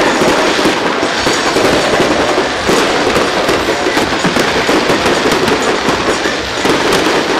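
Fireworks bursting and crackling: a dense, unbroken run of rapid pops and bangs.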